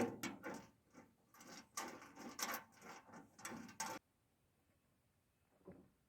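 Irregular clicks, clinks and scrapes of metal parts being handled and fitted while assembling a wood chipper's handle, stopping abruptly about four seconds in.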